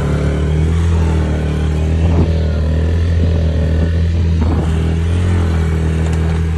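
Yamaha youth quad's small single-cylinder four-stroke engine running at a steady speed while being ridden along a dirt trail.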